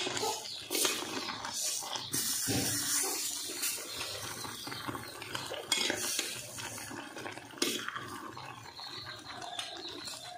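Metal spoon stirring thick crab masala curry in a metal pot, with irregular scrapes and clinks against the pot and wet stirring sounds.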